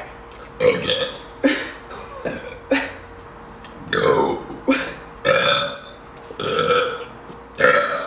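A woman burping loudly over and over, a rapid run of about nine burps, roughly one a second.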